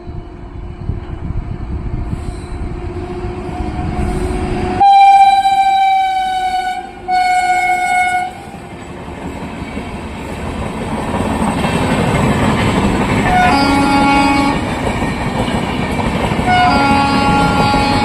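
An Indian Railways express train's locomotive approaching with a building rumble, then sounding two long, loud horn blasts about five seconds in. The train's rolling noise follows and grows louder as it passes, with shorter, fainter horn-like tones near the end.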